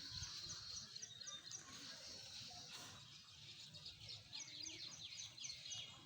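Small birds chirping faintly: quick runs of short, high chirps that fall in pitch, a few a second, once about a second in and again in the second half.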